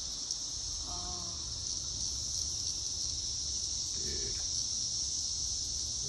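Steady high-pitched drone of a cicada chorus, unbroken throughout, over a low rumble.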